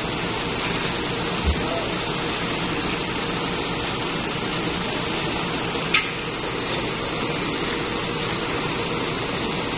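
Steady running noise, typical of the idling diesel engine of a large forklift. A dull knock comes about a second and a half in, and a sharp metallic clink about six seconds in, as the load straps are handled.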